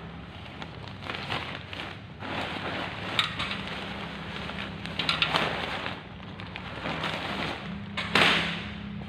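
Silicone-coated nylon ripstop tent fabric rustling and crinkling as it is handled, shaken out and laid flat, in irregular swishes with the loudest about eight seconds in.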